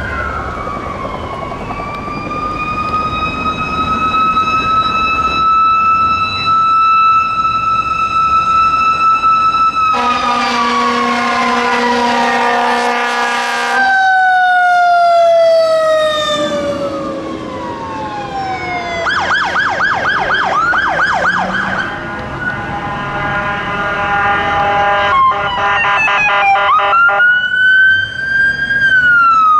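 Fire truck sirens wailing, rising and falling, with the pitch dropping as an engine passes. A long horn blast, typical of a fire engine's air horn, sounds about ten seconds in, and fast yelping siren bursts come twice in the second half.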